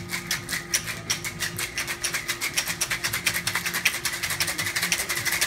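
Ice rattling inside a metal three-piece cocktail shaker worked in a Japanese hard shake, a rapid, even clatter of many strikes a second. The shake aerates the cocktail and controls its dilution.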